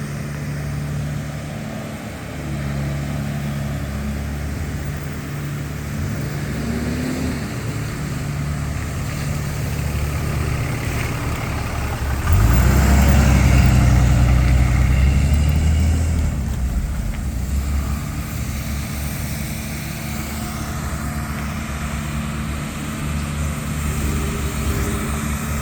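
Motor vehicle engines running steadily. About 12 seconds in, one engine revs up and grows louder for a few seconds, then eases back to a steady run.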